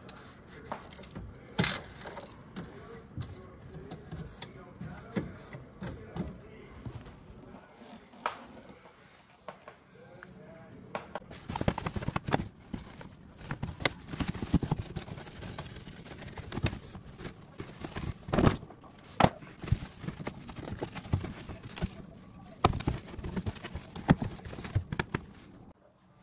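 Irregular clicks, knocks and clatter of small hard objects being handled, sparse at first and much busier from about eleven seconds in.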